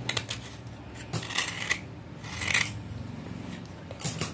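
Steel knife blade scraping the softened outer layer off a soaked piece of broken red clay pot, in about four short scraping strokes, the two in the middle longest.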